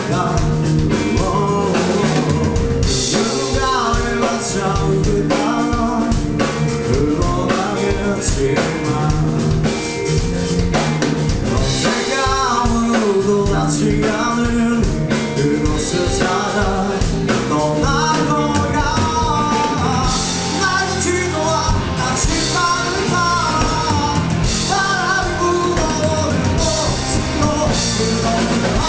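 Live rock band playing: drum kit, electric guitars and bass with a lead singer, loud and continuous.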